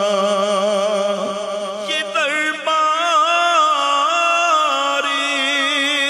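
A man singing an Urdu naat into a microphone, drawing out long wordless notes with a wavering pitch, stepping up to a new held note about two seconds in.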